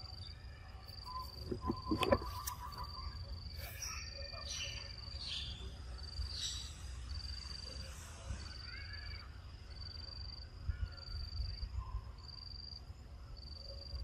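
An insect singing in the forest undergrowth: a high, even chirp repeating about every two-thirds of a second. Low wind rumble underneath, with a few knocks about two seconds in.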